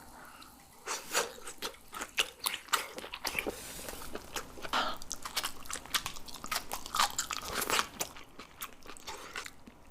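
Close-miked mouth sounds of a person biting and chewing crunchy food, with many sharp, irregular crunches.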